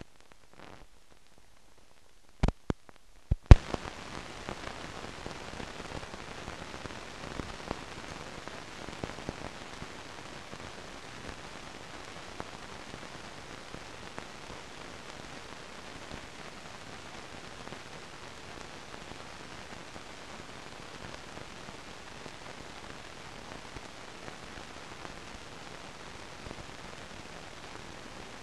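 Steady crackling hiss with scattered small pops, the surface noise of an old film soundtrack with no programme sound on it, starting after a few sharp clicks about three seconds in.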